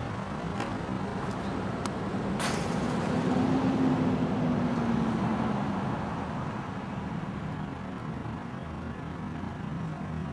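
Road traffic noise, with one vehicle passing and fading between about three and six seconds in. A single sharp crack a little over two seconds in is a tennis racket striking the ball on a serve.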